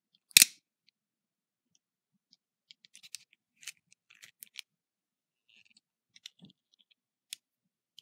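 Italian 1980s automatic stiletto switchblade firing open: one sharp metallic snap about half a second in as the spring-driven blade swings out and locks. Then faint scattered clicks as the knife and its bolster lock are handled.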